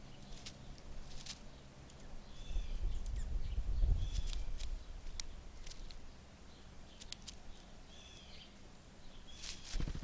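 Sharp clicks of a blue jay's bill pecking at birdseed close to the microphone, with a few short bird chirps in the background. A low rumble swells a few seconds in, and a loud thump comes near the end.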